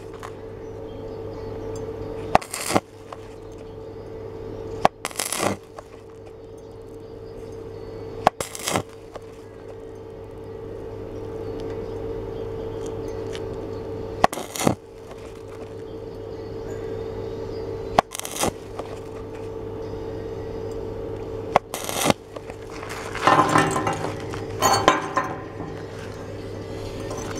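Stick (arc) welding on a steel block: the electrode arc crackles in short bursts every few seconds, then in a longer crackling run near the end, over a steady hum.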